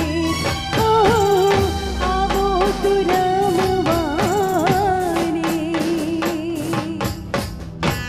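A woman singing a Garba folk song live through a microphone and PA, her long held notes ornamented with wavering turns, over the band's steady percussion beat.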